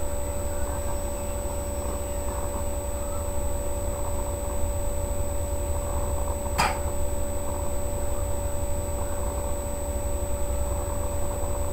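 Steady low rumble with an electrical-sounding hum, and one sharp click about six and a half seconds in.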